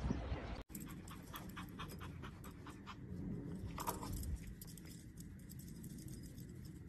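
Shiba Inu puppy panting, with many quick, irregular clicking mouth noises.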